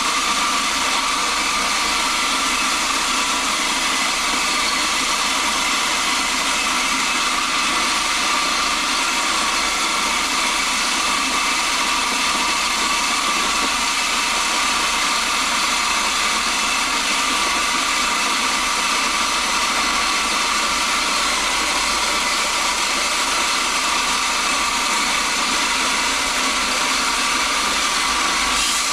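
Electric feed grinder running steadily with a constant high whine, milling dry corn kernels into feed.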